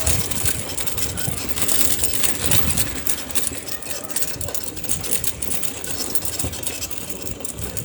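Street noise with a motor vehicle's engine running, under a continuous rumble with crackling.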